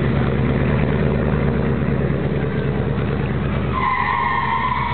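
Motorcycle engine running at idle, a steady low rumble with a choppy pulse; a steady high tone joins near the end.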